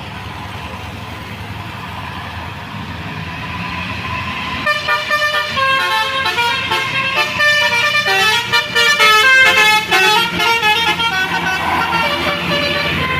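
A passing bus approaches, its engine and road noise growing louder, then about five seconds in its multi-tone musical horn (a telolet horn) plays a long run of quick stepped notes, like a tune.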